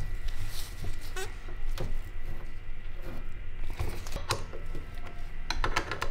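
Scattered light metallic clicks and clinks of a combination wrench and a banjo fitting being handled on a power steering line, with a quicker run of clicks about five and a half seconds in, over a steady low hum.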